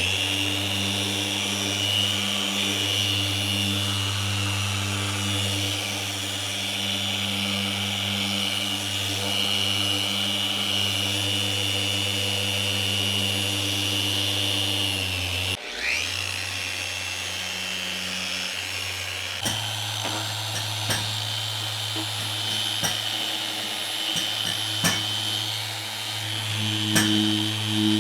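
A handheld electric power tool running steadily at constant speed. About halfway through it stops briefly and spins back up, then keeps running with scattered light clicks.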